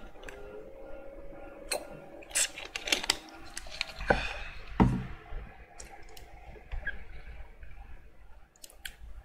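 Scattered small clicks and clinks of objects being handled, with a heavier knock about five seconds in and a faint steady hum after it.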